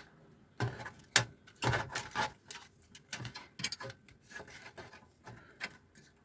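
Hands handling wires and a sleeve on a workbench: irregular rubbing and small clicks, one sharper click about a second in.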